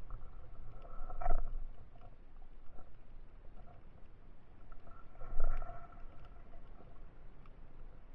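Muffled underwater water noise with faint scattered clicks, swelling louder twice: about a second in and again after about five seconds.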